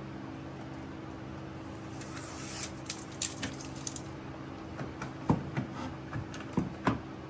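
Rustling and handling noise, then a few sharp knocks, the loudest about five seconds in, over a steady low hum.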